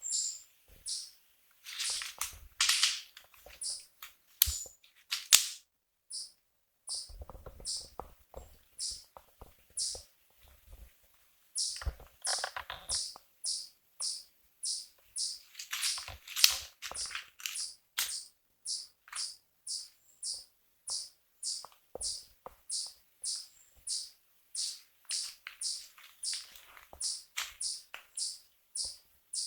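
A small animal's high, sharp chirp repeated steadily about twice a second, with bouts of louder rustling in between during the first half.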